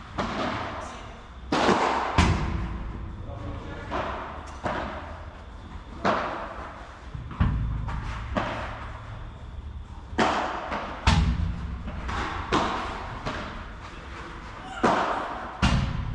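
Padel rally: a string of sharp, irregularly spaced hits as solid padel rackets strike the ball and the ball bounces on the court, each hit echoing briefly.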